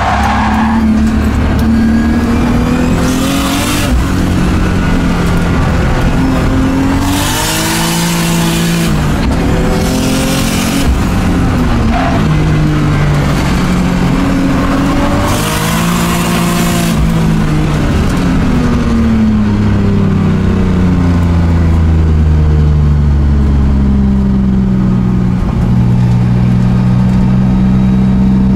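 Drift car's engine, heard from inside the cabin, revving up and down through the corners, with about four bursts of tyre squeal as it slides. In the last third the engine settles to a steadier note.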